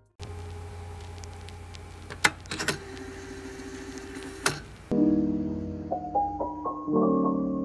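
Metal binder clips being opened and taken off a sketchbook, a few sharp clicks over a steady low room hum. Soft piano music comes in about five seconds in.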